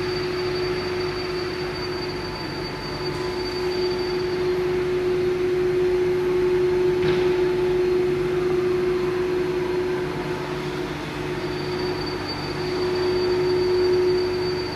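Four-spindle CNC nesting machine running with a steady mechanical hum. A high thin whine fades out about four seconds in and returns near the end, and there is a single short click about seven seconds in.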